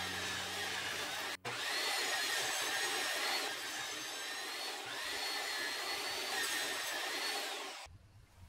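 Table saw running and cutting walnut held in a wooden jig: a steady machine noise with a faint whine that sags slightly in pitch twice as the blade takes the load. It cuts out for an instant about a second and a half in and stops shortly before the end.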